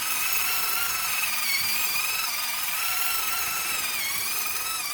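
Small electric motor and gearbox of an RC concrete mixer truck whining steadily as the drum turns to unload, the pitch wavering slightly.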